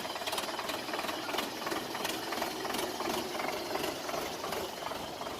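Indo Farm tractor's diesel engine running, with an even clatter of about three knocks a second.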